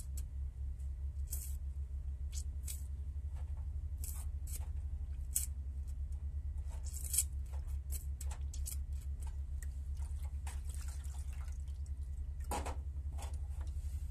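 Oily cleaning fluid splashing and dripping as hands rub and wash small metal hydraulic pump parts in a shallow metal tray, with scattered light clicks of metal and a louder clink near the end, over a steady low hum.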